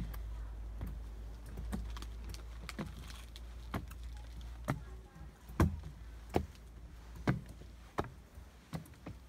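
Footsteps walking up trail steps at about one a second, the steps louder in the second half. A low rumble runs under the first half.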